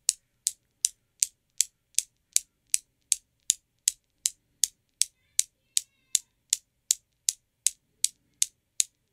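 Chrome steel balls of a Newton's cradle clacking as four balls swing against one: sharp metallic clicks, about two and a half a second, steady and even.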